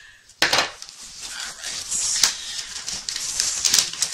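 Cardboard and paper packaging being torn open and handled: a sudden rip about half a second in, then continuous rustling and crackling with a few sharp snaps.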